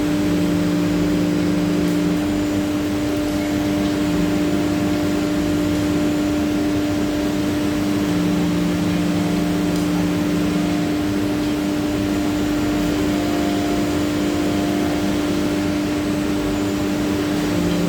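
CNC router spindle running steadily with a constant high hum, while cutting a GRC panel, with a lower hum that comes and goes every few seconds.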